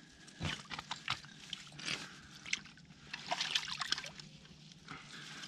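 Shallow creek water sloshing and trickling around hands working in the mud of the bank, with irregular small splashes and drips. It gets busier about three seconds in.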